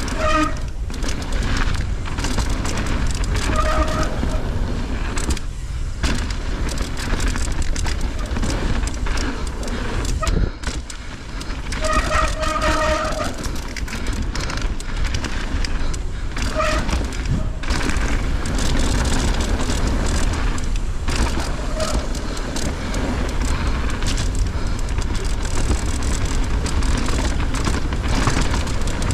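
Mountain bike descending a rough dirt trail: wind rushing over the microphone and tyres rumbling over the ground, with constant rattling knocks from the bike. A few short squealing tones come through, about 4 seconds in, around 12 to 13 seconds and near 16 seconds.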